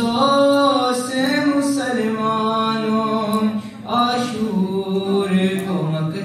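A boy's voice chanting a noha, an Urdu lament, solo and unaccompanied, in long held melodic lines with a short pause about four seconds in.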